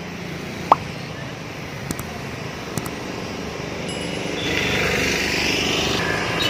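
Street traffic noise, with a motor vehicle passing that grows louder in the second half. A single sharp, very short rising chirp comes about a second in, and two faint clicks follow.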